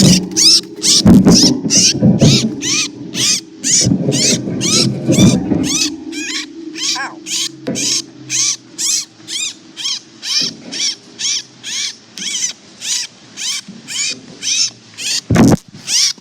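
A small bird giving repeated, high, harsh calls, about two to three a second, the alarm calls of a bird just caught in a trap. Loud rustling and scuffling sounds mix in over the first six seconds, then fade.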